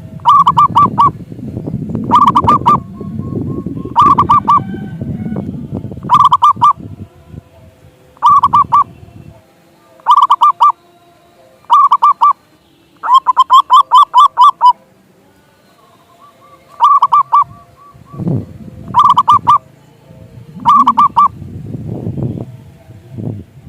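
Zebra dove (perkutut) cooing: short bursts of rapid staccato coos, repeated about every two seconds, with one longer run of coos about halfway through.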